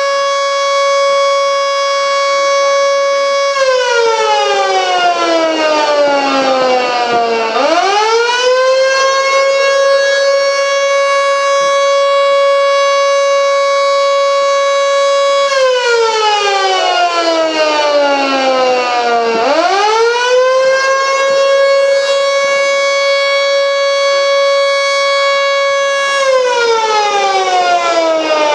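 1950s Federal Sign and Signal Model 2 electro-mechanical air raid siren, loud. It holds a steady high tone, then winds down in pitch as its power is cut and swoops back up to full pitch, three times over in a wailing pattern.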